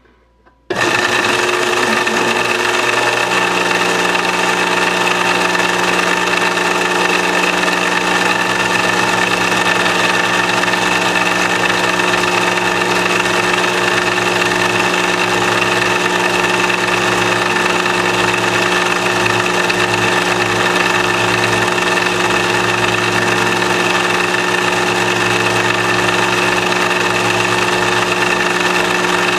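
An overhead drive motor switches on suddenly under a second in and runs steadily with a constant whine, spinning a drilling frame's carving bit as it cuts into the end grain of an ash blank on a rose engine lathe.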